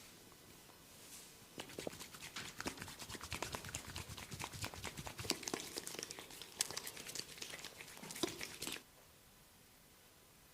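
Close-up crackling and crinkling of ear cleaning with oil: fingers working in an oiled ear, a dense run of sharp crackles that starts about a second and a half in and stops abruptly near nine seconds.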